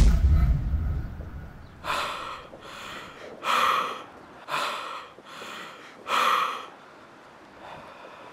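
A man gasping for breath close to the microphone: about six heavy breaths in quick succession, as in a panic attack. It opens with a sudden low rumble of the handheld camcorder being jolted.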